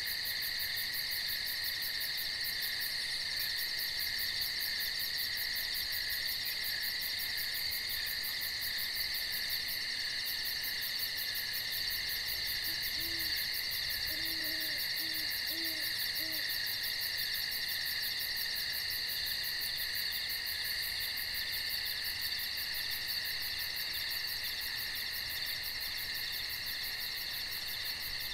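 Steady night chorus of crickets and other insects, with a fast pulsing trill high above a constant shrill hum. About halfway through, an owl gives a short run of five or six faint, low hoots.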